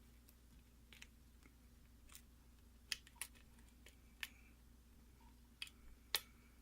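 Faint, sharp metallic clicks of a lock pick working the pins inside a pin-tumbler lock during single-pin picking. About seven irregularly spaced ticks, the loudest about three seconds in and near the end.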